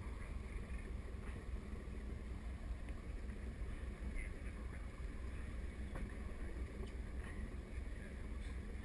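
Steady low rumble of wind on the microphone over open water around a small boat, with a few faint ticks.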